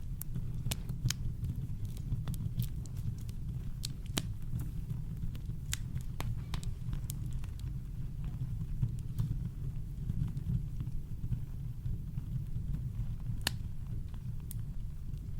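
Campfire crackling: irregular sharp pops and snaps of burning wood over a steady, deep brown-noise rumble.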